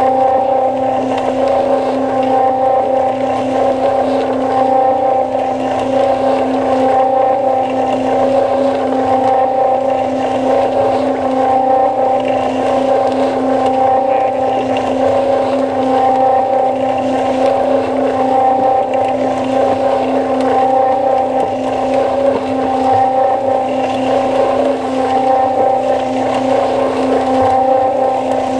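Cement mixer running, heard from inside its turning drum: a steady motor hum at one fixed pitch over the continuous churn of wet concrete tumbling against the drum wall.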